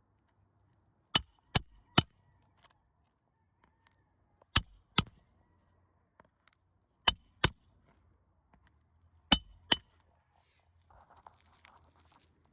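Hammer blows on metal, driving roofing nails back into an asphalt shingle through a roof-snake nailing tool: a group of three sharp clinks, then three pairs of strikes a few seconds apart.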